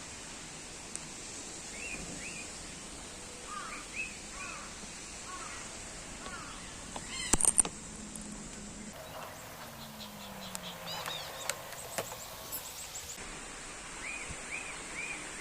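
Aviary birds calling: repeated short chirps throughout, with one loud harsh squawk about halfway through.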